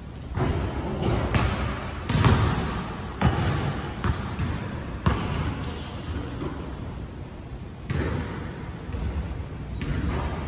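Basketball bouncing on a hardwood gym floor and being caught and passed during a shooting drill: a handful of separate thuds about a second or two apart. Sneakers give a short high squeak on the hardwood about halfway through.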